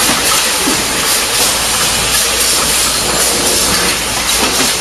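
Steady loud hiss of a running packaging production line: machinery and conveyors blending into one even noise, with no single knock or tone standing out.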